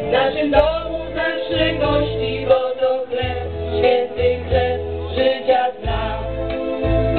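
Female vocal trio singing a song together into microphones through a PA, over instrumental backing with bass notes.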